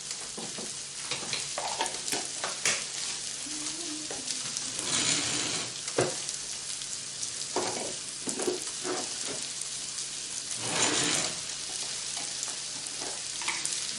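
Chopped onion, peppers and garlic sizzling in olive oil in a pan while a spoon stirs them, with a spoon scraping and tapping against the pan now and then and the sizzle swelling louder a few times, around five seconds in and again near eleven seconds.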